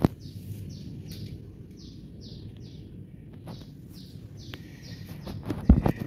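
A bird chirping over and over, about two short falling chirps a second, over a low background rumble. A sharp click sounds at the start and a few louder knocks come near the end.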